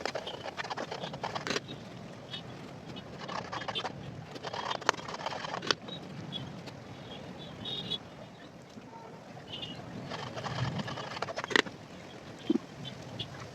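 Scattered sharp clicks and clinks over a low steady rumble, with a few short high bird chirps.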